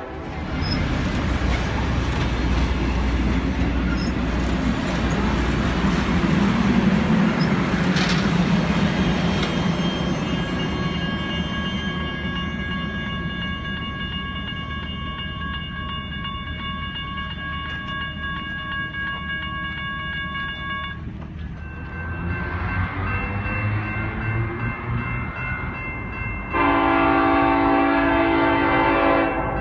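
BNSF geometry train's cars rolling past over the rails, the noise fading as the train draws away, with a steady high ringing from the grade-crossing signal's bell in the middle stretch. Near the end the lead SD70ACe locomotive sounds its multi-chime horn for about three seconds.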